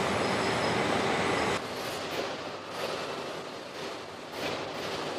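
Car body-shop assembly-line machinery noise: a loud steady machine hiss that cuts off abruptly about a second and a half in, giving way to quieter machine noise with a few brief swells.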